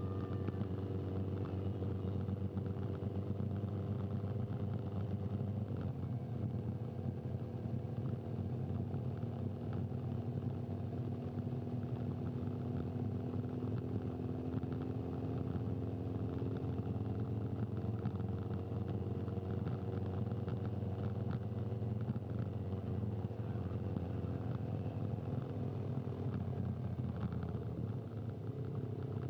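Motorcycle engine running steadily at a low, even speed, its pitch drifting slightly up and down, as from the TV camera motorbike riding just ahead of the riders.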